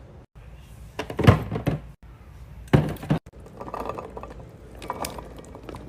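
A few dull thunks and knocks of things being handled and set down, the loudest about a second in and another near three seconds, with lighter rattling between.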